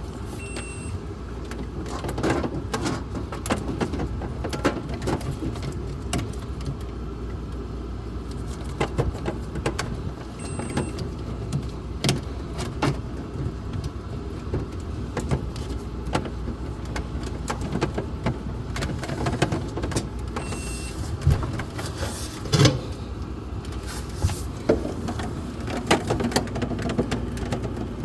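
Irregular clicks, knocks and rattles of parts being handled and fitted during a refrigerator ice maker replacement, over a steady low hum.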